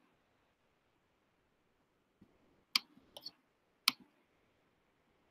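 Computer mouse clicks: a few short, sharp clicks in the second half, two of them close together, over quiet room tone.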